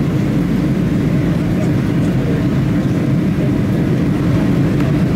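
Steady low cabin rumble of a Boeing 737-800 in flight, the engines and airflow heard from inside the passenger cabin.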